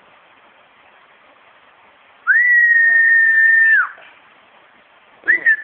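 A young child's whistling snore: one loud, steady high whistle on a single breath, about a second and a half long, sliding up at its start and down at its end. A shorter, rougher pitched sound begins near the end.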